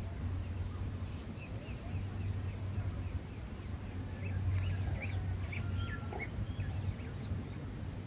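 Small birds chirping: a quick run of short high chirps, about four a second, then a few scattered chirps, over a steady low rumble.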